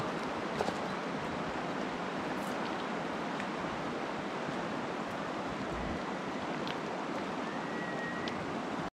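Steady rushing of a mountain stream running over rocks and gravel riffles.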